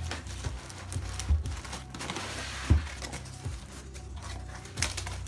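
Plastic wrapping and cardboard packing being handled as a subwoofer is pulled out of its box: crinkling and rustling with a few knocks, the loudest close to three seconds in, over a steady low hum.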